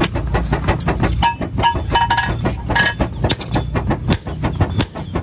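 Village blacksmith workshop at work: a low rumble for about the first second, then a steady run of sharp, irregular clicks and knocks of metal and wood tools.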